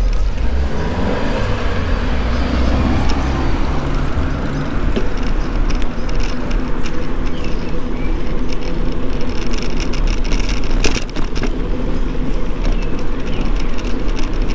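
Steady street and road rumble heard from a moving bicycle, with a car engine running close by for the first few seconds and a few sharp clicks about three-quarters of the way in.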